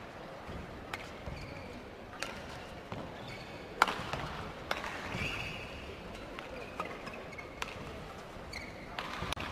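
Badminton rally: racket strings hitting the shuttlecock about once a second, the loudest stroke about four seconds in. Short shoe squeaks on the court floor and a murmur of voices from the hall come between the strokes.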